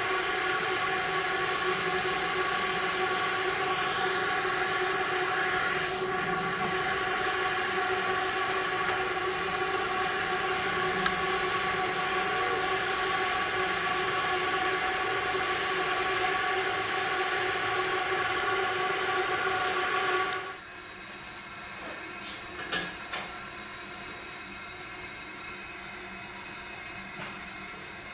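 Steady motor whine with a rush of air, from a blower drafting the fire of a small live-steam locomotive as steam is raised; it cuts off suddenly about twenty seconds in, leaving a few light clicks.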